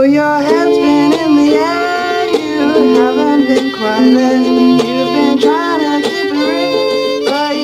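Live acoustic fiddle playing a gliding instrumental melody over ukulele accompaniment.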